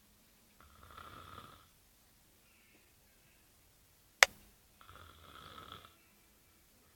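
Sleeper snoring: two rattling snores about a second long, one near the start and one in the second half, with a single sharp click just before the second.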